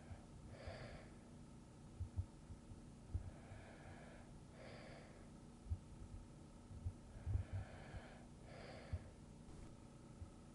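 A person's slow, soft breathing as in sleep: three breaths about four seconds apart, each drawn in and then let out. A few faint low thuds sound between them.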